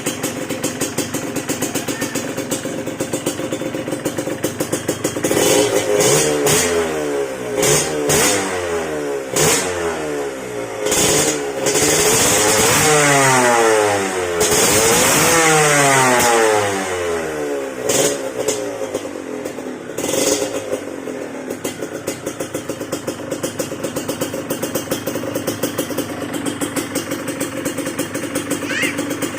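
Yamaha DT125 two-stroke single-cylinder engine breathing through an aftermarket exhaust pipe, very loud. It idles with a fast, even beat, is then revved in repeated quick blips that rise and fall in pitch and held high for a few seconds in the middle, and settles back to idle for the last third.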